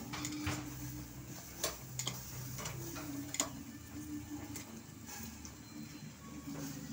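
Metal barbecue tongs clicking against a wire mesh grill grate as pieces of meat are turned, a handful of sharp, irregular clicks over a faint low hum.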